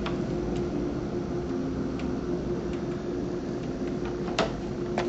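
Steady background hum with a faint held tone, and two light taps near the end.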